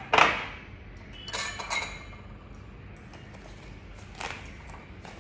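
Glass clinks and knocks as things are handled around a glass mixing bowl on a glass-topped table. The loudest knock rings off right at the start, a cluster of clinks follows about a second and a half in, and there is one more near four seconds.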